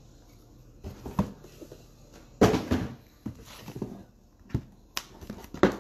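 A cardboard box being handled on a table: a run of irregular knocks and short scraping rustles, the loudest about two and a half seconds in.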